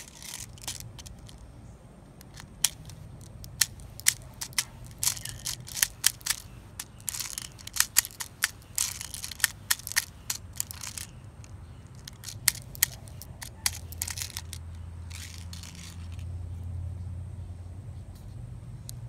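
White plastic BBs being pushed into an airsoft pistol magazine with a speed loader: irregular sharp clicks and short rattling, scraping runs as the BBs snap past the feed lips.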